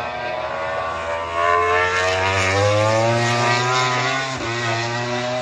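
MotoGP race motorcycle accelerating out of a corner. Its engine note rises in pitch and grows louder over the first few seconds, then a brief break and drop in pitch about four seconds in, an upshift, before it pulls on.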